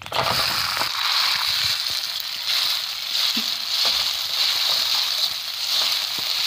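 Wet boiled spaghetti dropped into hot oil in a kadhai, sizzling hard. The sizzle starts suddenly and stays steady.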